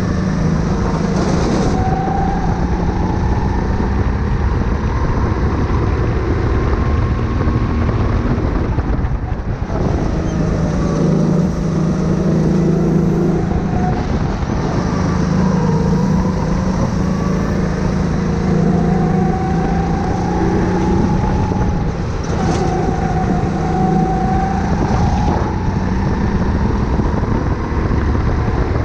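Go-kart engine at speed, heard onboard, its pitch rising and falling with the throttle through a lap over a constant low rumble. It eases off briefly about nine seconds in.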